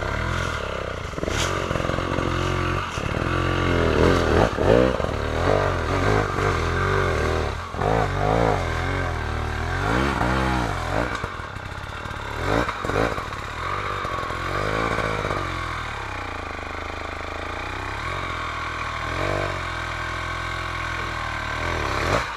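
Off-road motorcycle engine revving hard in repeated rises and falls, the rider working the throttle, with a few sharp knocks and clatter mixed in.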